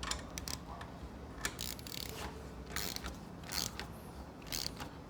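Socket ratchet clicking in short, irregular runs while exhaust header flange nuts are tightened with a 12mm socket.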